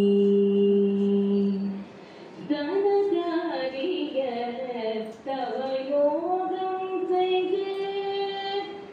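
A woman singing a song with ornamented, wavering melody lines. A long steady held note breaks off about two seconds in, and after a short pause the melody goes on.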